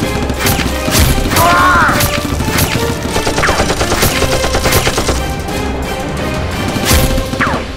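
Rapid bursts of gunfire sound effects, many shots in quick succession, over steady background music.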